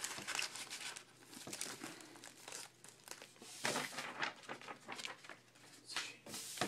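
Trading-card pack wrappers crinkling and tearing as packs are handled and opened, in irregular bursts with a few louder rips.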